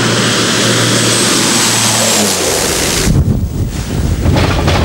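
Small propeller plane's engine running loudly with a steady drone and a faint high whine. About halfway through it changes to a lower, rougher rumble.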